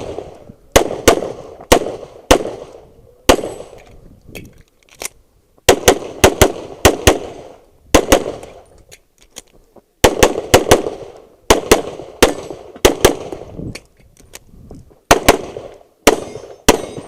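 Handgun gunfire: strings of rapid pistol shots, several in quick succession, broken by pauses of one to three seconds, each shot ringing out briefly.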